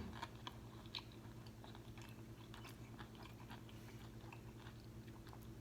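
Faint chewing of a crispy fried flounder fish sandwich: scattered soft mouth clicks and crunches, over a steady low hum.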